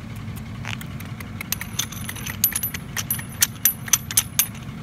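Vehicle engine idling steadily, with an irregular run of sharp clicks and light metallic clinks through the last three seconds.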